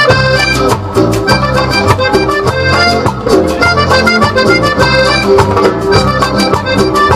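Live cumbia band playing an instrumental passage: an accordion melody over bass and a steady percussion beat. The bass and drums come in right at the start, after a brief lead-in of high notes.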